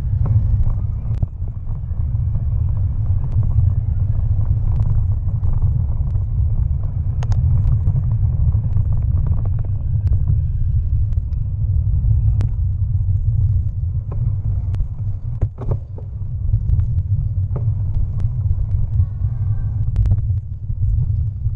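Steady low rumble of a bicycle riding along a rough dirt towpath, wind and ride vibration buffeting the bike-mounted action camera, with scattered clicks and knocks from bumps in the path.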